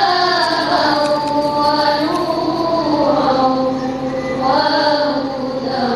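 A choir of girls singing together in long held notes that slide slowly from pitch to pitch.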